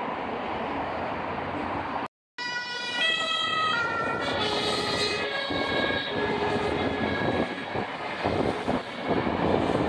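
Electric S-Bahn train running beneath an overhead bridge, a steady rumble and clatter from the cars. After a brief cut-out about two seconds in, high whining tones step in pitch and then fall away over the rumble.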